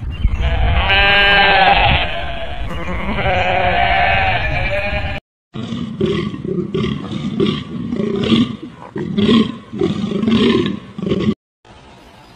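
Goat bleating in long, wavering calls for about five seconds. After a short break, a deer calls in a run of rough, short calls, about two a second, for about six seconds, then it goes quiet.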